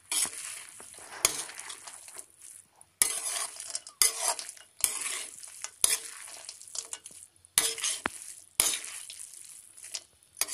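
A perforated steel spatula stirring and scraping vermicelli upma around a metal kadai, in irregular strokes about once a second, with the food sizzling between strokes.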